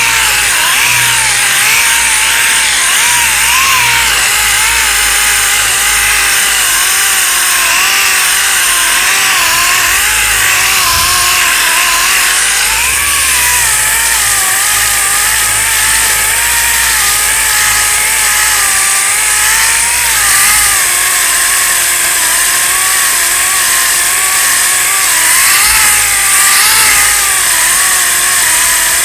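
An 8-inch orbital sander with 40-grit paper running steadily over cured short-strand fibreglass body filler, its whine wavering up and down in pitch over a loud hiss of sanding.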